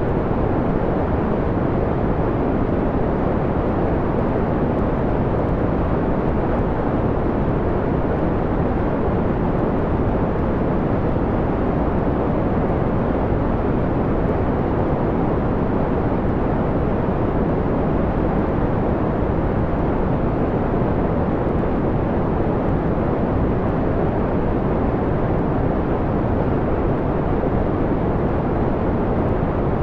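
Steady white noise, filtered down to a dull, mellow hiss-rumble with most of its treble removed. It holds even, with no change or break.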